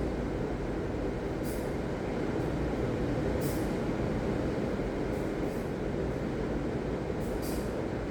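Ocean surf: a steady, deep rumble of breaking waves, with brief high hisses about four times.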